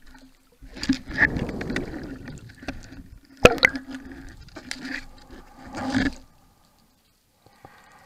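Underwater rush of water and bubbles as the diver descends, with one sharp snap about three and a half seconds in: the Matador 76 speargun firing at an octopus. A few smaller clicks follow.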